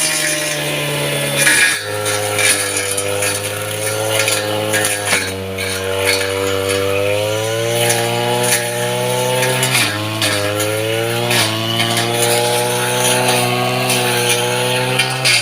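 Small petrol engine of a Japanese-market grass cutter running steadily, its speed dipping briefly and picking up again several times.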